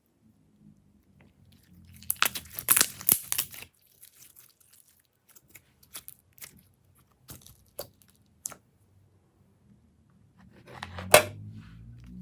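Glossy slime being squished and stretched by hand, giving wet crackling and popping clicks: a dense run of crackles about two seconds in, scattered single pops, and another burst with one sharp snap near the end.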